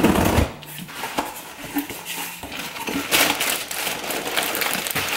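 Scissor blade slitting the packing tape on a cardboard box, a loud tearing rasp at the start, then cardboard flaps being pushed open and plastic bags of groceries rustling and crinkling as they are lifted out.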